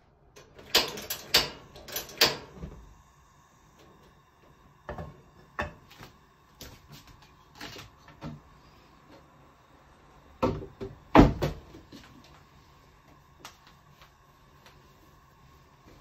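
Kitchen clatter: a run of sharp knocks and clacks in clusters, about a second in, again around five to eight seconds, and loudest at about ten to eleven seconds, as a gas stove burner is lit under a frying pan.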